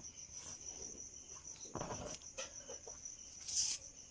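Quiet background with a steady high-pitched insect trill. A faint short call comes about two seconds in, and a brief rustling hiss near the end as the tape measure and cloth are handled.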